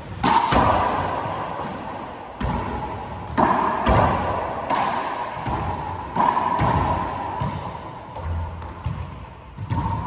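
Handball rally in an enclosed four-wall court: about eight sharp smacks at irregular intervals as the small rubber ball is struck by hand and rebounds off the walls and floor, each followed by a long ringing echo. The loudest hits come just after the serve and again around three to four seconds in.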